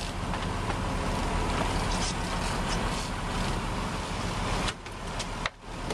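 Sportfishing boat's engine running steadily under a rush of water and wind. The sound drops off abruptly about three-quarters of the way through, with a few sharp clicks after.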